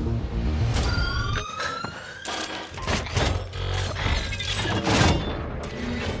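Film sound effects for a robot: a few rising electronic whines, then a run of rapid mechanical clicks, clanks and whirs, like servos and metal parts shifting, over low music.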